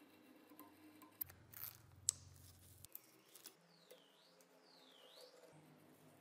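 Faint handwork: a utility knife blade cutting and lifting masking tape on a wooden knife handle. A few sharp clicks and a short hiss come a second or two in, then two brief swooping squeaks.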